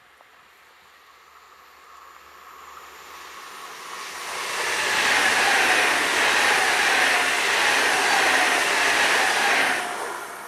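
Train passing close by on the track: the rail noise builds over a few seconds, stays loud for about five seconds with a high metallic ring and a slowly falling whine, then drops away sharply near the end.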